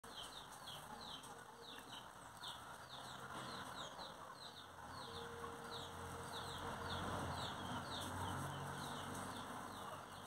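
Small birds chirping steadily, short high falling chirps about three a second, over faint background hiss.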